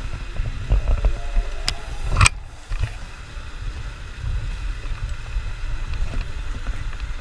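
Water gushing from outlets in a barge's hull and splashing into the sea, over a steady low rumble. There are two sharp knocks about two seconds in.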